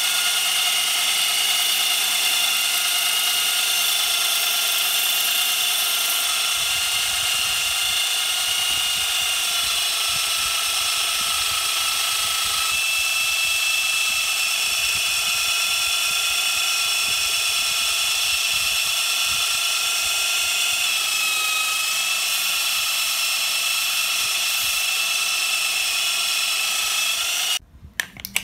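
Belt sander running with a steady high-pitched whine as a steel brake-disc blade blank is ground against the abrasive belt. The whine shifts slightly in pitch a few times and cuts off suddenly near the end.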